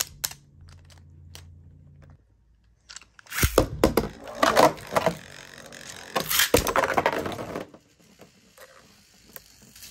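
Beyblade spinning tops launched into a plastic stadium, clattering and clashing with dense sharp clicks and knocks for about four seconds from about three and a half seconds in. The clash ends in a burst, one top knocked apart into pieces, and the clatter dies down to a few scattered clicks.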